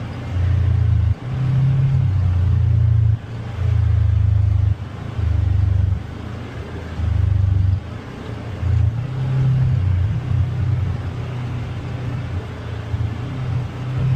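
Polaris Xpedition UTV driving over a rough trail, a heavy low rumble that swells and drops away in uneven spells of a second or so.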